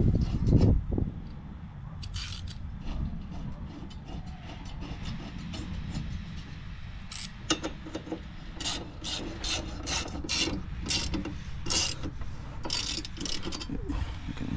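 Handling noise and low knocks, then from about halfway on a ratchet wrench clicking in quick strokes as the blade bolts on a Honda HRX217 mower are run in.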